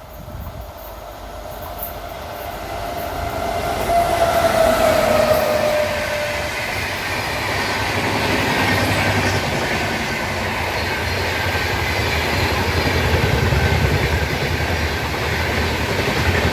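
Railway train passing close by: the noise of the train grows louder over the first four seconds, then holds as a steady rumble and rattle of the rolling wagons. A single drawn-out tone sounds a few seconds in, sinking slightly in pitch before it fades.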